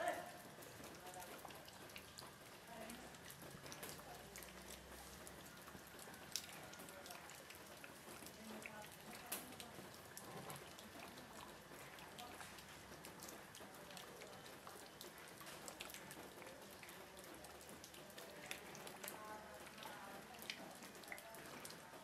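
Faint light rain with water drops falling on leaves: a soft steady hiss broken by scattered, irregular drip ticks.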